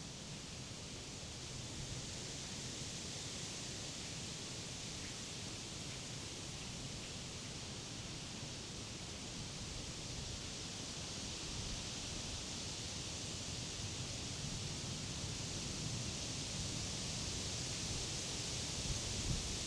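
Wind blowing through leafy summer trees and grass, a steady rushing rustle of leaves that swells a little louder in the second half, with low wind rumble on the microphone.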